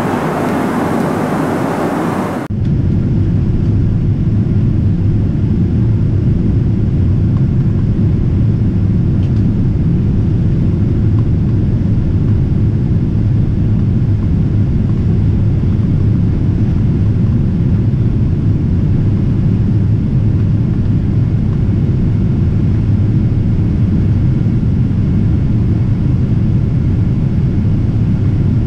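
Steady in-flight cabin noise of a Boeing 777-300ER. It is a brighter rushing hiss for the first couple of seconds, then changes abruptly to a deeper, even low rumble heard at the cabin window as the airliner flies low on its descent.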